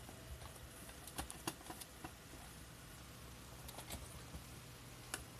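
Scattered light clicks and taps of small plastic toys being handled and set down, over a faint steady hum.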